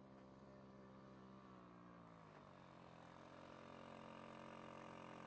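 Small quad bike engine running, faint; its pitch drops about two seconds in, then holds steady and grows slightly louder as the quad comes over the rise.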